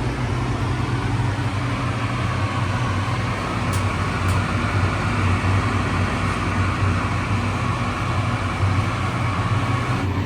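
Air conditioner running on high cool: a steady fan rush over a low, even hum.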